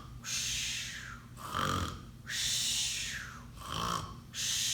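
A woman imitating a sleeping bear's snoring: two rumbling snores on the in-breath, each followed by a long breathy hiss on the out-breath.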